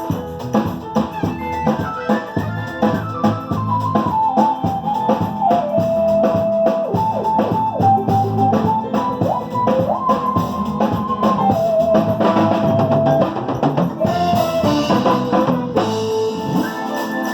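Music: a melody moving in held notes over a steady drum beat and bass.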